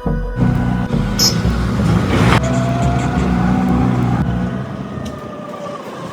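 A vehicle engine running steadily, with a thin whine that rises slowly from about two seconds in.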